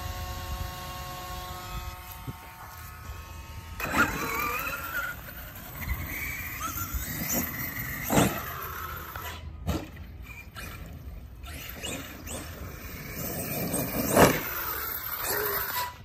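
Electric brushless motor and drivetrain of an Arrma Kraton EXB RC monster truck, whining and rising and falling in pitch as it speeds up and slows, with sharp knocks about 4, 8, 10 and 14 seconds in. For the first few seconds there is a steady buzzing tone.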